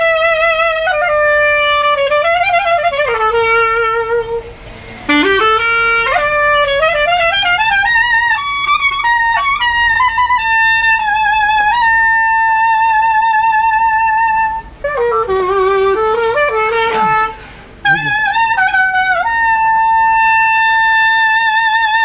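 Solo clarinet playing a slow melody with vibrato on long held notes, pausing briefly for breath a few times, and ending on a long sustained note.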